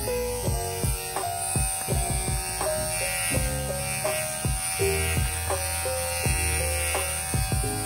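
Kemei KM-2002 cordless hair clipper buzzing as it cuts hair. Background music of short, stepping notes plays over it.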